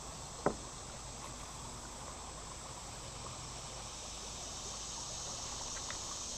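Steady outdoor insect chorus, with a single sharp click about half a second in.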